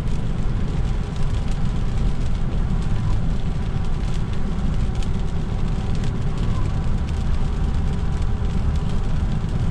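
Car cabin noise while driving on a rain-soaked road: a steady low rumble of engine and tyres, with a hiss from the wet road surface.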